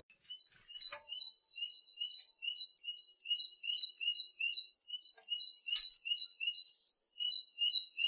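Great tit singing its two-note 'teacher-teacher' song: a higher note followed by a lower one, repeated steadily about two to three times a second, starting about a second in.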